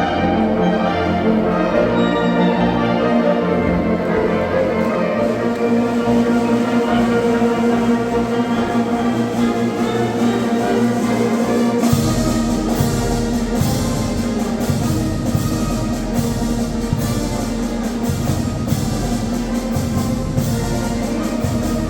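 Oaxacan village wind band (banda filarmónica) playing sustained brass and woodwind chords; about halfway through, drums and cymbals come in with a steady beat.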